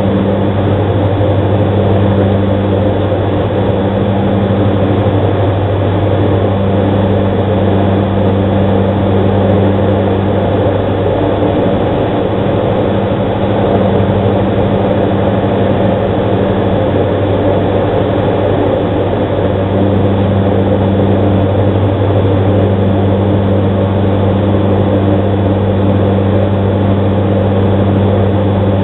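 Diamond DA42NG twin-engine aircraft in flight, its two Austro AE300 turbodiesel engines and propellers making a loud, steady low drone heard from inside the cockpit.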